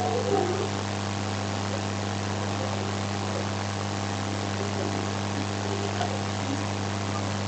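A steady low hum with an even hiss behind it, unchanging throughout, with a brief faint sound about half a second in.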